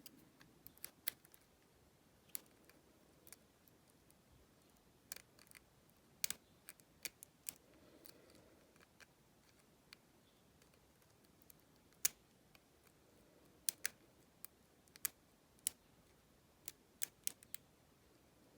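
Faint, irregular small metallic clicks and ticks of a lock pick and tension tool working the pins inside an Abus 70AL/45 five-pin aluminium padlock, a few scattered clicks a second at most.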